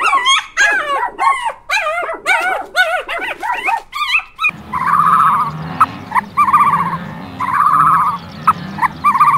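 Small dog whining and yipping in quick, high, rising-and-falling cries. After about four and a half seconds it cuts abruptly to a different sound: a short buzzy croaking call repeated about once a second over a low steady hum, with sharp clicks between.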